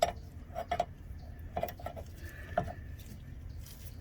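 Metal hand tools, a socket and wrench, clinking against the steering linkage hardware: several sharp metallic clinks, some in quick pairs, with brief ringing.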